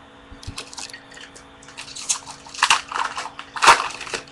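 Plastic wrapper of a baseball card pack crinkling as it is opened by hand, in irregular crackles that grow louder toward the end.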